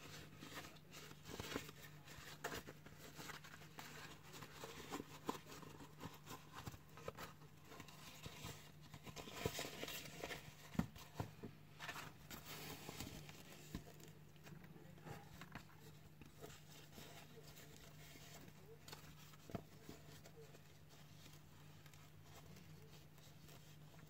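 Car gearshift gaiter and its plastic frame being worked by hand: scattered rustling, crinkling and small clicks, busiest in the first half and thinning to faint handling later, over a steady low hum.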